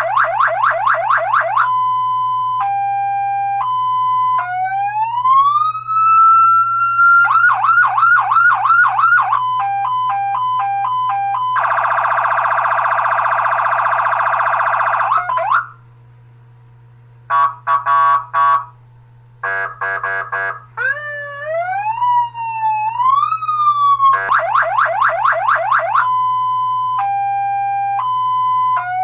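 Electronic siren cycling through its tones: a fast yelp, a two-tone hi-lo, a rising wail, quick yelps, a beeping pattern, a steady buzzing tone lasting about four seconds, short pulsed tones and rising zigzag glides, then starting the same sequence again near the end. A low steady hum runs underneath.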